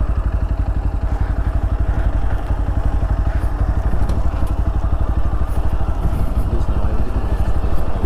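Single-cylinder motorcycle engine running steadily under way, growing slightly louder toward the end.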